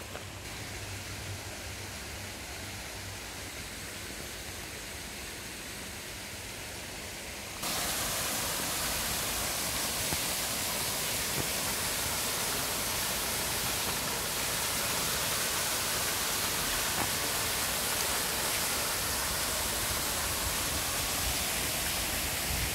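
Steady rushing of a small waterfall cascading over rocks. It comes in suddenly about a third of the way in, much louder than the soft, even hiss before it, and then holds level.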